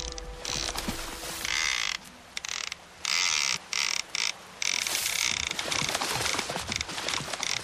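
Fishing reel ratcheting as line is wound in or run out, in short bursts that start and stop abruptly, then running on steadily from about five seconds in.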